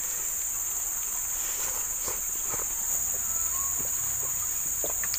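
Steady, high-pitched drone of an insect chorus, with a few faint clicks and taps from handling.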